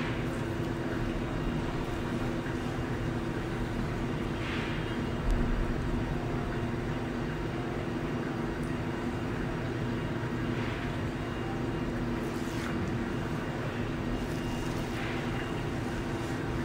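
Cryolipolysis fat-freezing machine running with a steady droning hum, with a few faint rustles as the anti-freezing membrane is unfolded and laid on the skin, and a single low thump about five seconds in.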